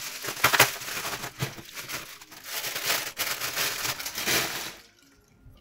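Bubble wrap crinkling and crackling as it is pulled off a camera lens, stopping abruptly near the end, after which faint background music is left.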